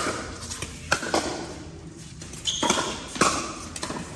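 Pickleball rally: paddles hitting the hollow plastic ball with sharp pops, several in quick succession, the clearest about a second in and again after two and a half seconds.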